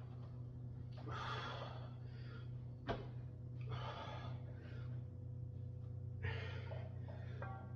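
A man's heavy, forceful breathing during a set of barbell bench press: three long breaths about two and a half seconds apart, with a sharp knock about three seconds in, over a steady low hum.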